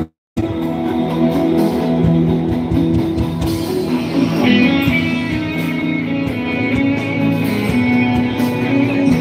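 Amplified live band music from a concert stage's sound system, heard from among the audience. The sound cuts out for a split second right at the start.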